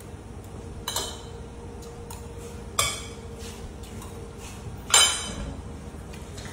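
A fork clinking against a plate three times, about two seconds apart, each strike ringing briefly; the last is the loudest.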